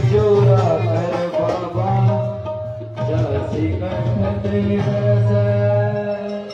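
Devotional bhajan music: a voice singing over a hand-drum beat, with held instrumental notes underneath.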